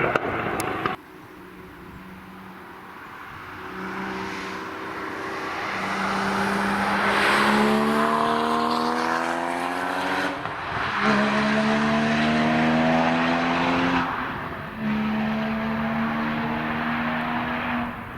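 A car's engine accelerates hard as it approaches, its note rising in pitch and getting louder. The pitch drops back at gear changes about ten and fourteen seconds in.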